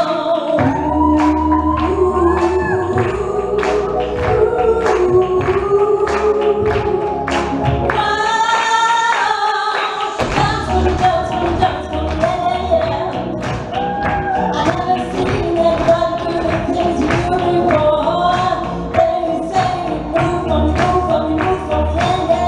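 Pop song played loud: a sung melody over a steady beat. The bass drops out about eight seconds in and comes back about two seconds later.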